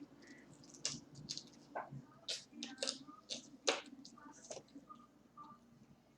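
Close-miked eating: bites and chewing of crispy fried chicken wings, a run of irregular crunches and wet mouth smacks.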